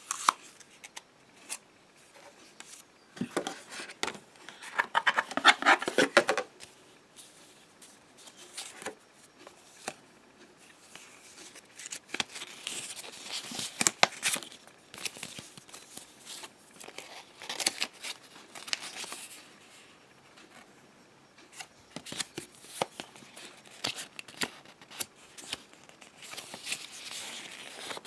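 Paper rustling and crinkling in irregular bursts as a folded instruction leaflet is unfolded and handled, with sharp crackles throughout and the loudest burst about five seconds in.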